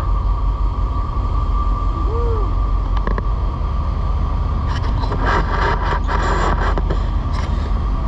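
Panama Canal lock machinery running: a steady mechanical hum and rumble with a steady whine over it. A rattling clatter starts about five seconds in and stops shortly before the end.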